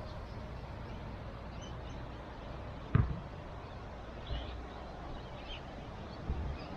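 Outdoor ambience on a windy day: a steady hiss of wind with occasional low thumps, the loudest about three seconds in, and faint bird chirps.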